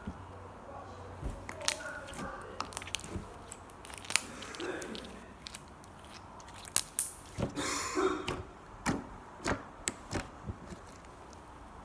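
Slime being squeezed and kneaded by hand, giving irregular clicks and pops, with a short rustle about two-thirds of the way through.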